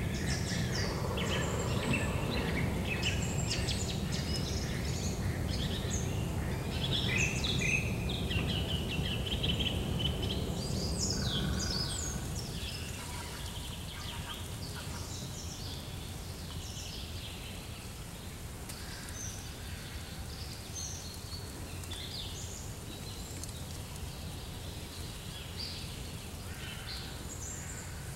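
Outdoor ambience of wild birds chirping and calling in short notes, over a steady low rumble. The calls are thickest in the first half, and the rumble drops off about twelve seconds in.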